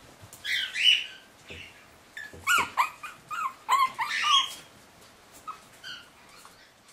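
40-day-old Shih Tzu puppies giving short, high-pitched cries that bend in pitch: a couple about half a second in, a close run of them in the middle, and a few fainter ones near the end.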